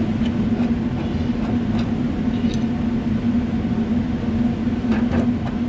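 Power sander running steadily with a constant hum, sanding stone chips and cracks out of the paint on a car's boot lid.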